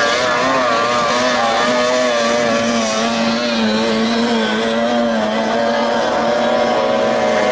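30 hp outboard engine of a tunnel-hull racing boat running at speed. The engine note wavers up and down in pitch for the first few seconds, then holds steadier.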